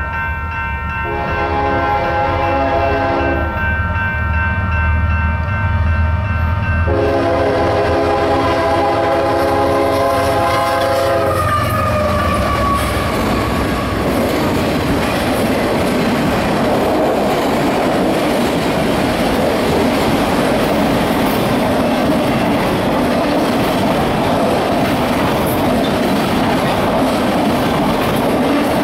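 Union Pacific diesel freight train passing a grade crossing. The lead locomotive's multi-note air horn sounds in long blasts over the engines' low rumble, its pitch dropping as it goes by about 12 seconds in. After that comes the steady rumble and wheel clatter of autorack cars rolling past.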